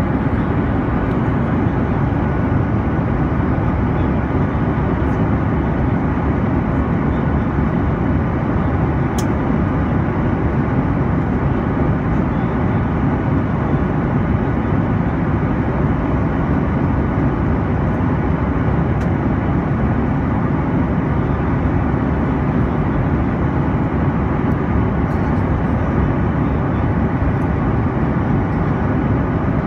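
Steady cabin noise of an airliner in cruise flight: an even rush of engine and airflow noise heard from inside the cabin, with a couple of faint clicks.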